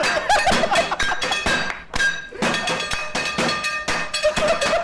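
Quick rhythmic clapping and plate-knocking in time with background music, as a restaurant's plates-and-dishes music show; short shouted voices cut in near the start and the end, and the beat breaks off briefly just under two seconds in.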